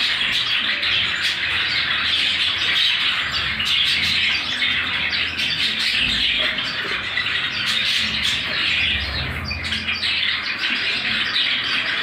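Many caged birds in a breeding aviary chattering and squawking together in a dense, steady chorus of short sharp calls.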